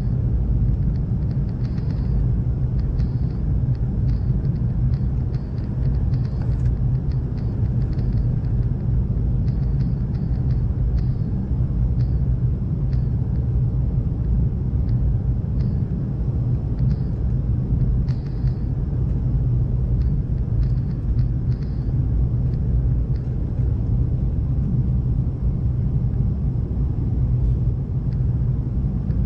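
Steady low rumble of a McDonnell Douglas MD-88 airliner's rear-mounted Pratt & Whitney JT8D engines and rushing air, with faint scattered ticks over it.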